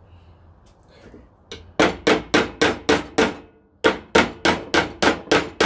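Hammer striking the nails in an old wooden fence board to knock them out: two quick runs of sharp, ringing blows, about three a second, with a short pause between the runs.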